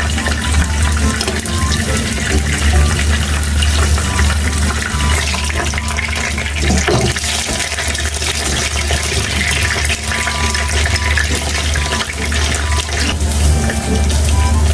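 Water running steadily, with a faint musical tune under it.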